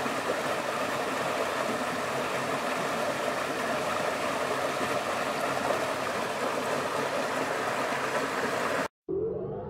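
Small forest cascade pouring over rocks into a pool: a steady rush of water. Near the end it cuts off suddenly, and after a brief silence music with rising tones begins.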